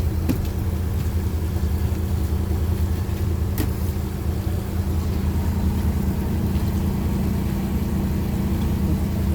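An engine running steadily at a constant speed, a low, even hum that does not rise or fall. A faint click about three and a half seconds in.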